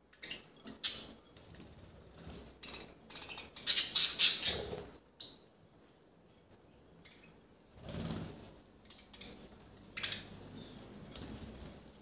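A flock of budgerigars chirping and chattering in short bursts, the loudest and longest burst about four seconds in.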